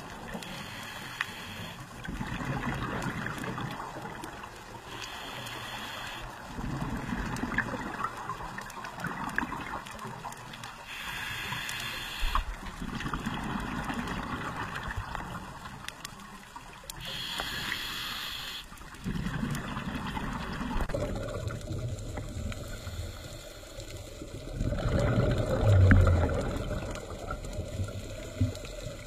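Scuba regulator breathing heard underwater: a short hissing inhale about every six seconds, with the gurgling rumble of exhaled bubbles between them.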